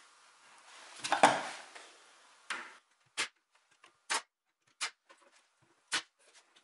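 A knock with a rustle about a second in, then five short, sharp clacks roughly a second apart: a pneumatic brad nailer firing brads to fix carved beaded wooden trim.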